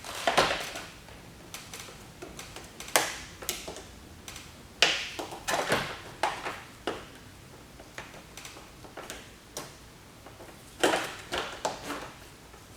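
Scattered clicks and knocks of hands working the chemical dispenser's lines and fittings loose, in several short clusters.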